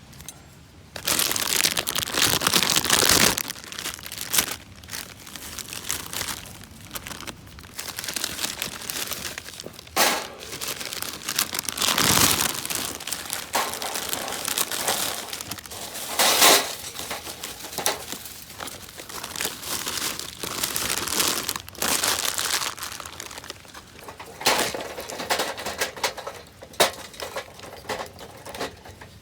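Crinkly material being crumpled and handled by hand: irregular bursts of crinkling and rustling. The loudest stretch is near the start and there are sharper peaks around the middle.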